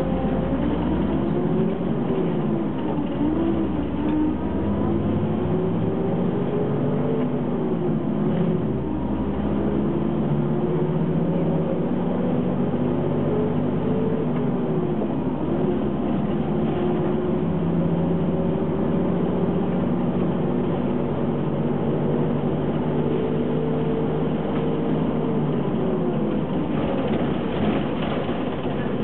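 Ikarus 280 city bus's diesel engine rising in pitch and dropping back several times as the driver shifts the manual gearbox up through the gears while accelerating.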